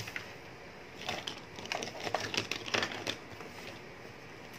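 Irregular light clicks and rattles of small hand tools and LED bulb parts being handled, mostly between about one and three seconds in.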